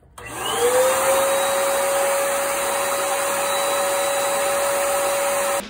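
Earlex 5500 HVLP spray station's turbine switched on: its whine rises in pitch over the first second as it spins up, then runs steady and really loud with a rush of air, cutting off suddenly near the end.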